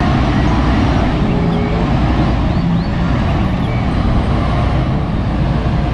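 XCMG XCA60 all-terrain crane truck's diesel engine running as the truck moves slowly across a lot: a steady low rumble.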